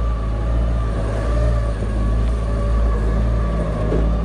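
Mini jet boat's 110 hp, 1053cc Yamaha four-stroke engine running steadily, a low rumble with an unchanging pitch.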